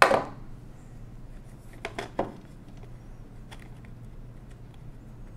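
A sharp metal clatter with a short ring, as a small metal object is set down on the desk, then two lighter clicks close together about two seconds in as hands handle the calculator's metal casing.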